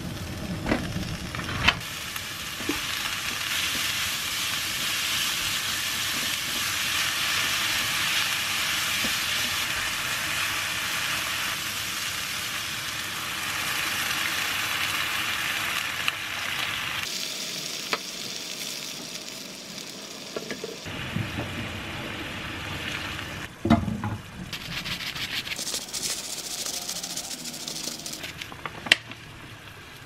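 Diced vegetables and minced pork sizzling in a nonstick wok while being stirred, with a few sharp knocks of the spatula against the pan. About halfway through, water is poured in, the sound changes, and the sizzle gets quieter.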